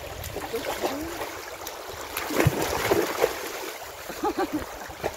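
Shallow creek rushing over stones, with a German Shepherd wading and splashing through the water; the splashing is loudest about two to three seconds in.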